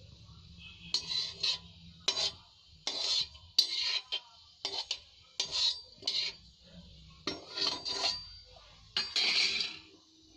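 Perforated metal spoon scraping around a metal kadai in short strokes, roughly one a second, while whole cumin, cloves and bay leaves are lightly fried in oil.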